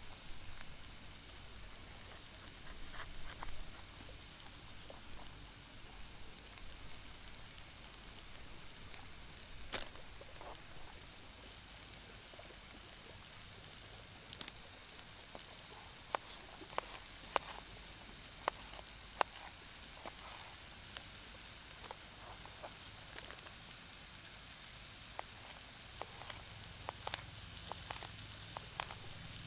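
Mushrooms and onions sizzling steadily and faintly in a pan on a Trangia stove, under the sharp clicks of a knife cutting a red bell pepper on a cutting board, with a run of louder knife taps about halfway through.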